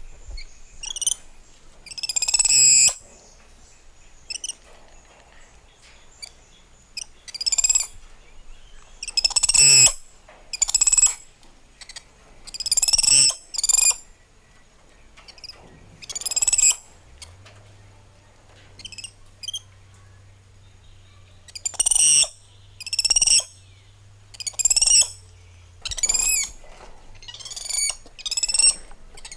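Spider monkeys calling: a string of high-pitched squeals and chirps, some short, a few held for about a second, coming irregularly about every one to two seconds.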